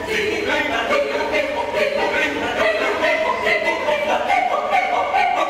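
Mixed choir of men's and women's voices singing a choral piece in Cebuano, holding long chords whose pitch climbs higher toward the end.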